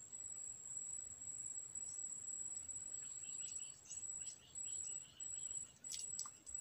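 Steady high-pitched insect drone from the waterside vegetation. A run of quick, evenly repeated chirps comes about halfway through, and two sharp clicks follow near the end.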